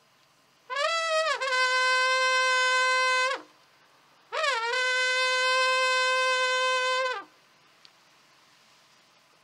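A wind horn sounding two long calls. Each starts with a quick upward bend and then holds one steady, bright pitch for about two and a half seconds, and the two calls are separated by silence.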